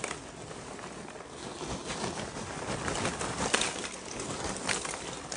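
Open wood cooking fire burned down to embers, giving a few sharp crackles and pops over a steady rustling noise.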